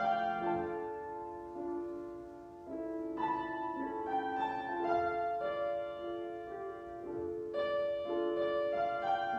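Slow instrumental keyboard music, held chords changing every second or two, with no singing.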